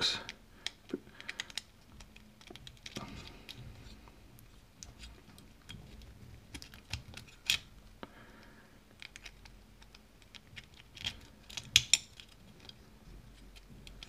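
Scattered small metallic clicks and taps from a brass euro cylinder lock being handled and worked with a white plastic tool pushed into it, with a louder cluster of clicks near the end.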